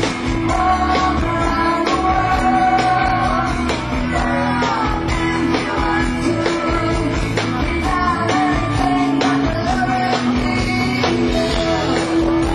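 Rock band playing a song with sung vocals over guitar and a steady beat.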